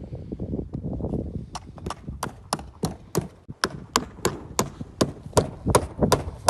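Hammer striking in a steady rhythm, about three blows a second, starting about a second and a half in, over a low rumble.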